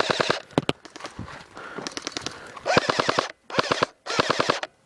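Airsoft guns firing on full auto: several short bursts of rapid, evenly spaced shots, each under a second long, stopping just before the end.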